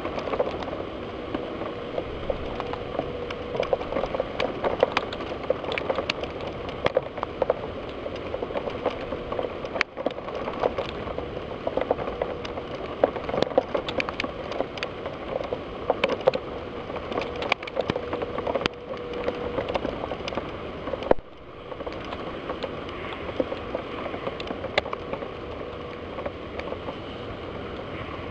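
Heavy thunderstorm rain: a steady wash of rain with many sharp, irregular ticks of drops striking window glass close to the microphone. The sound briefly drops out about three-quarters of the way in.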